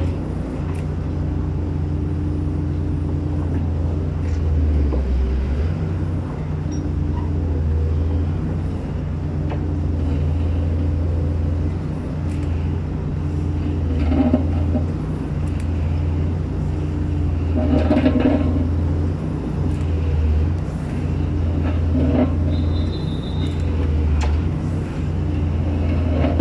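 Hydraulic press-in pile driver (Giken Silent Piler) and its power unit running steadily, a low engine drone, as it jacks a sheet pile into the ground. A few short, louder knocks come from the machine during the stroke.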